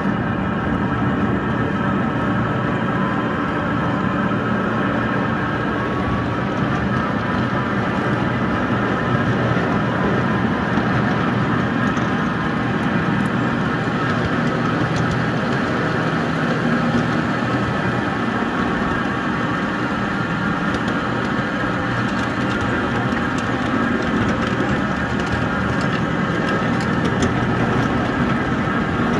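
Small ride-on locomotive's engine running steadily as it pulls the train along the track.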